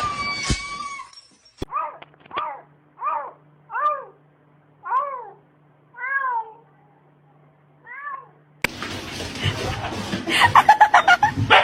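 A kitten meowing over and over, about eight short rising-and-falling cries roughly a second apart. Near the end a louder, rough, rapidly pulsing sound takes over.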